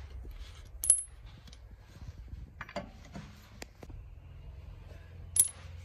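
Metal clinks and taps of loose steel wheel bolts and a cross wrench being handled, with two sharp clinks that ring briefly, one about a second in and one near the end, over a faint steady low hum.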